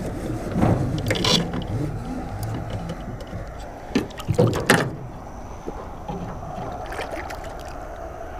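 Water moving around a small anchored boat, with a few sharp knocks and clatters in the boat about a second in and again around four to five seconds in.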